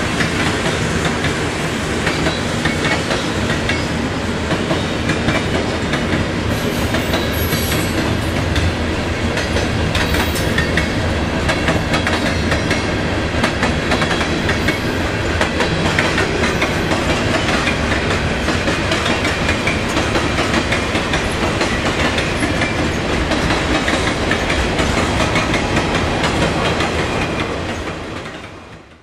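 Freight cars rolling past on steel wheels: a steady rush of wheel and rail noise with clickety-clack over the rail joints. The sound fades out near the end.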